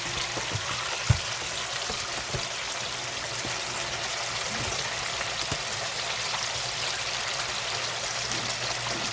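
Chicken wings deep-frying in hot oil: a steady sizzling hiss. A single dull knock about a second in.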